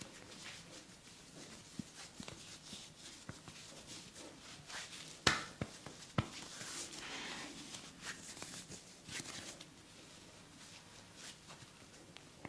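Hands rubbing and kneading skin and hair during a head and body massage, with scattered soft taps and rustles. Two sharp cracks come about a second apart near the middle, joints popping under the massage, followed by a brief stretch of brisk rubbing.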